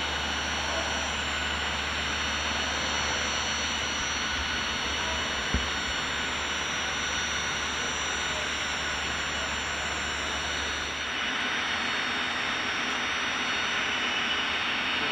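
Jet aircraft engines running steadily: an even rush with several high whining tones held at one pitch. A low hum under it drops out about two-thirds of the way through, and there is a single click about five seconds in.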